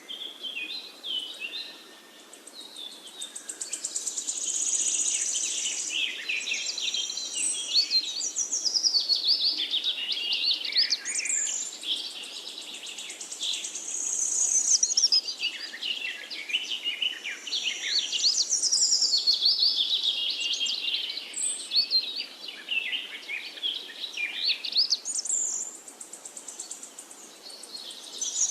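Forest birds singing together: several overlapping songs of quick chirps and high trills, swelling and thinning in waves.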